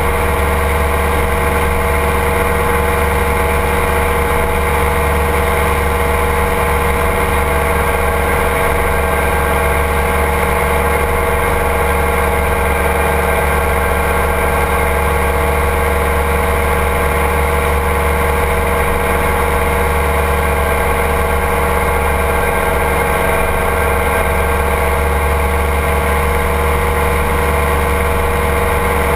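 Engine of a flex-wing ultralight trike running at a steady cruise in flight, a constant unchanging drone.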